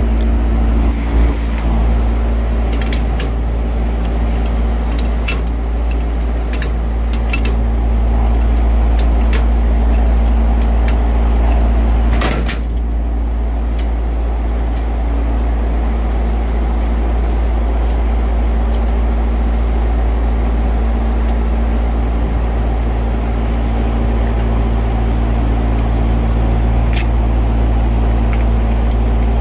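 Steady low hum of running machinery, with scattered light clicks and small metal knocks from hand work on a fan motor's terminal box and lead wires. There is a louder clattering burst about 12 seconds in.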